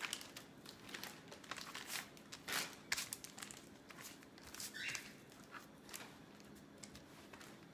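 Faint, irregular crinkling of a plastic zipper bag and rustling of paper towels as slices of raw beef are picked up and dropped into the bag, with a few louder rustles around the middle.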